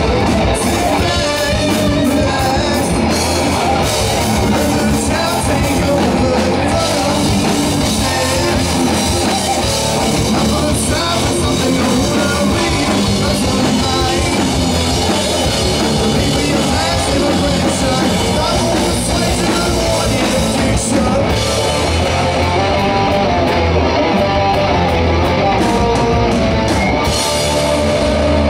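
Live rock band playing loudly: electric guitars, bass guitar and drum kit going at full tilt in a hard rock/metal instrumental passage, without a break.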